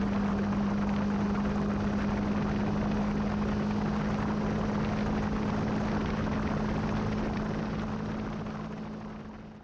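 Motorcycle riding steadily along a road: a steady engine drone with wind and tyre noise, fading out near the end.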